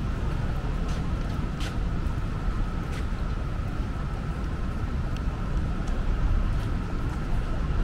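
City street ambience: a steady low rumble of traffic, with a faint steady high tone and a few light clicks.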